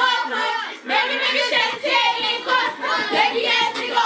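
Several women singing along together, loosely and unevenly, their voices overlapping.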